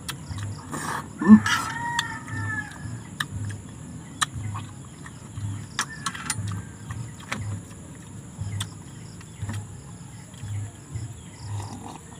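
A rooster crows once, about a second in. Scattered clinks of a fork and spoon against a metal pan run through, over a low throb that repeats about twice a second.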